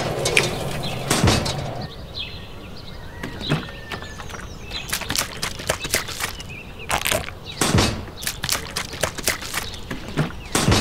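A miniature cement mixer's small electric motor hum cuts off as it is switched off. Then comes a series of small clicks and knocks as wet cement is tipped and tapped out of a small cup into a mini column form, with bird chirps in the background.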